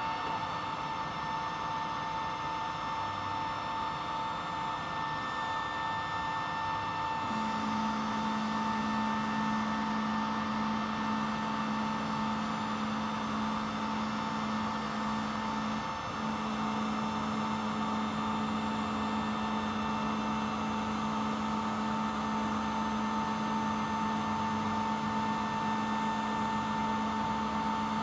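Steady mechanical hum with a clear whine over it. A lower hum comes in about seven seconds in and cuts out briefly about halfway through.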